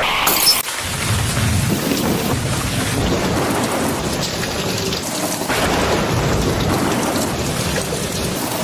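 Steady heavy rain with low rumbling thunder.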